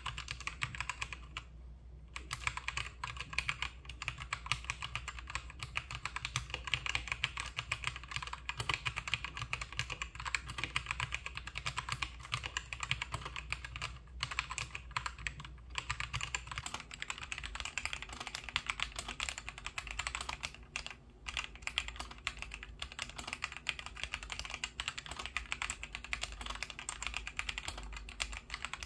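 Continuous fast typing on a K68 wireless mechanical keyboard, a dense clatter of key clicks with a few short pauses, struck lightly at first. The case gives no hollow ringing behind the keystrokes.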